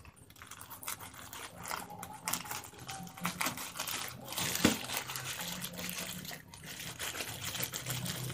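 Scissors cutting open a plastic courier mailer: irregular snips and clicks, with the plastic crinkling and rustling as it is pulled and handled.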